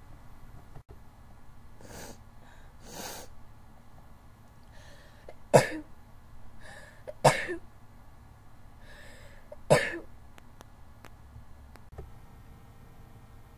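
A person sneezing three times in a row, roughly two seconds apart, each sharp sneeze led by a softer breathy inhale: a fit of allergy sneezing.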